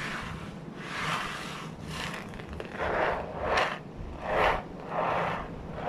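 A homemade ocean drum, made from a painted board with a plastic sheet sealed over steel balls, is tilted back and forth. The steel balls roll across it in about six swelling and fading hisses, imitating ocean waves.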